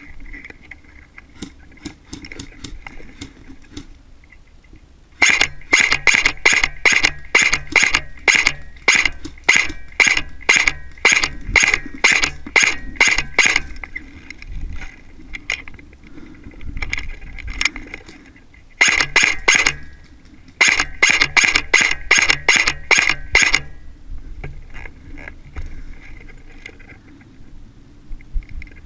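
Airsoft gun firing in rapid strings of shots, several a second, in three bursts: a long one, then two shorter ones close together near the end.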